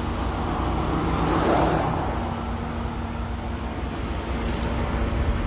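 Road traffic going by: a steady low rumble, with one car passing that swells and fades about a second and a half in.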